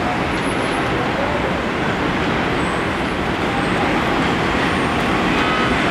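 R142A subway train approaching along elevated track, a steady rumble of wheels on rail that grows slowly louder as it nears.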